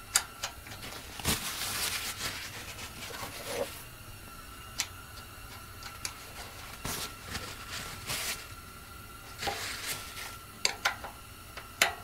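Scattered light clicks, taps and rubbing of fingers handling and threading the small drain screw back into the aluminium float bowl of a Honda GX240 carburetor.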